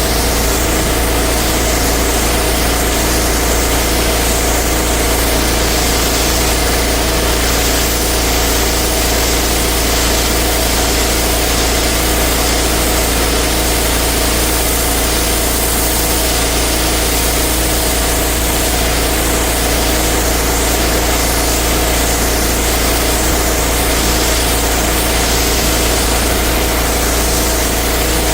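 Engine-driven pressure washer running steadily: an even engine hum under a constant hiss.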